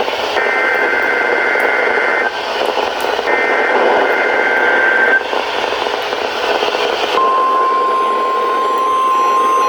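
NOAA Weather Radio EAS alert over radio static: two bursts of the SAME digital header, a harsh two-tone data warble, each about two seconds long with a second's gap between them, then about seven seconds in the steady 1050 Hz weather radio alert tone starts.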